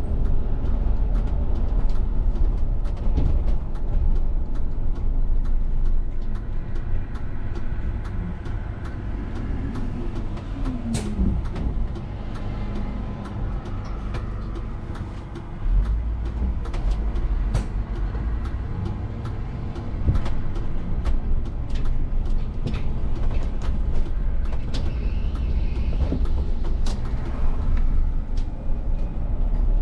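VDL city bus running, heard from the driver's seat: engine and road rumble with frequent small cab rattles. The rumble eases off for several seconds as the bus slows behind traffic, then rises sharply a little past halfway as it pulls away again.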